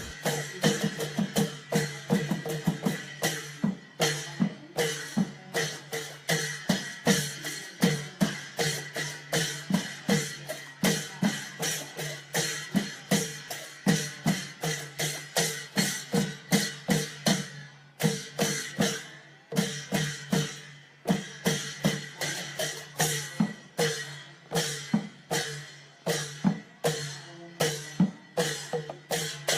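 Thai Isan klong yao long drums playing a quick, steady rhythm of strokes, several a second.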